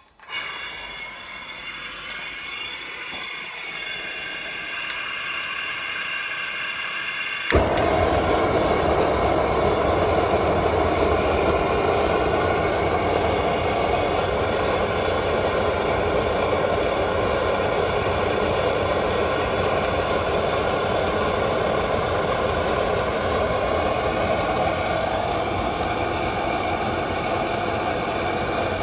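Eastman Kahuna gas wok burner: gas hisses with a faint whistle, building for several seconds. About seven seconds in it catches with a pop and burns loudly and steadily with a full-throated rush of flame.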